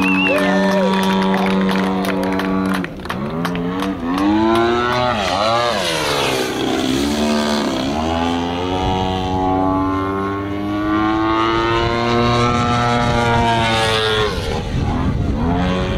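Engine and propeller of a 35% scale Aeroworks Extra 260 radio-control aerobatic plane in flight. Its pitch holds steady for the first few seconds, then swoops down and up several times as it manoeuvres, rises slowly through the later part and dips again near the end.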